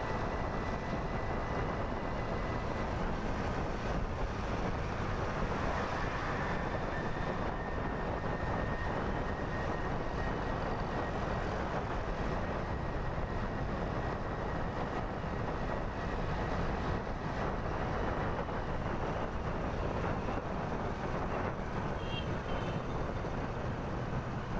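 Steady rush of wind on the microphone and road noise from a motorbike riding along a road.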